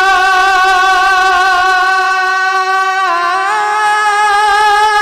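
A man singing a naat, holding one long high vowel with a slight waver, that steps up in pitch about three seconds in.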